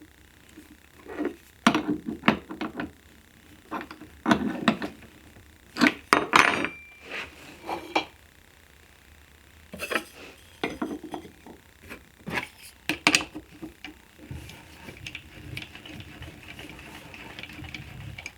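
Wooden jig parts and tools being handled and set down on a workbench: a series of separate knocks and clatters, with a faint steady hum in the last few seconds.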